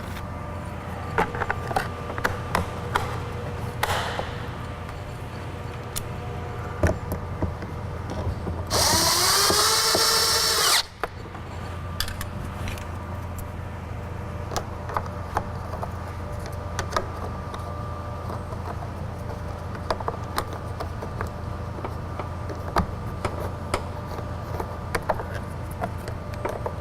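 A power drill-driver runs for about two seconds near the middle, its whine rising in pitch as it spins up, driving a fastener. Scattered light clicks and knocks come before and after it, over a steady low hum.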